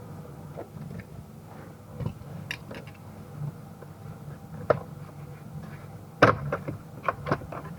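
Plastic steering column cover of a Lexus RX350 being unclipped and handled: scattered clicks and knocks, the loudest about six seconds in.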